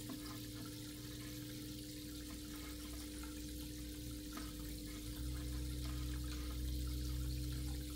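Steady trickle of circulating aquarium water over a constant low hum, with a deeper rumble that grows louder about five seconds in.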